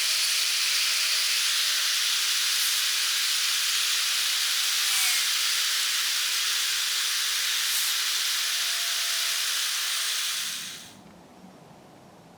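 A steady hiss that cuts off abruptly about eleven seconds in.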